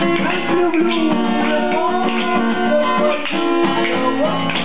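Music with guitar playing steadily, with sustained notes and changing chords.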